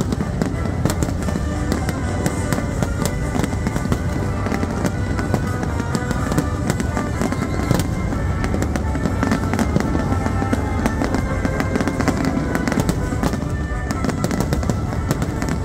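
Dense aerial fireworks barrage: a continuous run of overlapping bangs and crackling bursts, with orchestral music playing steadily underneath.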